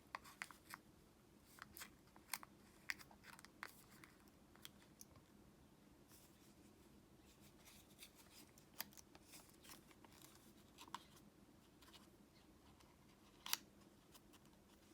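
Origami paper being folded and creased by hand: faint, irregular crinkles and sharp little crackles, with one louder snap near the end.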